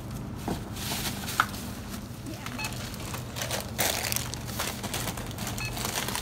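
Groceries being rung up at a store checkout: plastic packaging rustling and crinkling as items are handled, with two short high beeps about three seconds apart from the barcode scanner. A steady low hum runs underneath.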